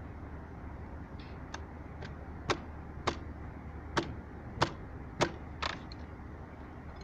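Six sharp knocks, a little over half a second apart, over a steady low hum.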